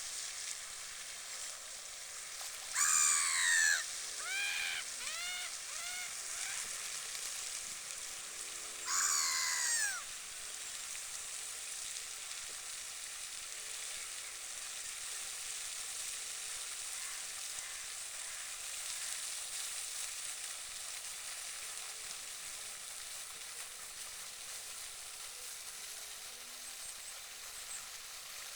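Canada geese honking: a loud honk about three seconds in, a quick run of shorter honks after it, and another loud honk near ten seconds in, over a steady hiss.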